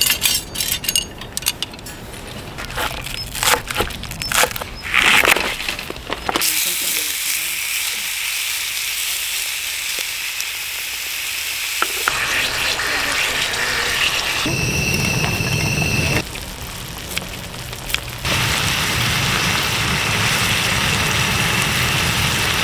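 Camp cooking sounds over several cuts: sharp clicks and crackles for the first few seconds, then a steady sizzle of food frying in a pan.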